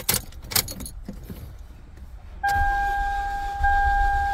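Ignition keys jingling and clicking, then, about two and a half seconds in, a Toyota Camry's starter motor cranking the engine with a steady whine over a low rumble, without the engine catching. The car has a cylinder 1 and 4 misfire and a starting problem.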